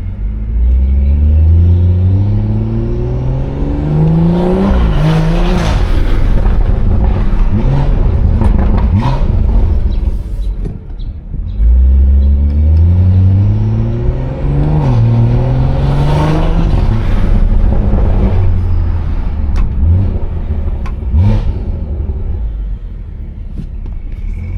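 BMW 340i's turbocharged B58 inline-six with a loud modified exhaust, pulling hard twice: each time the engine note climbs steadily for about four seconds, then drops as the throttle comes off, with a few short sharp cracks in between.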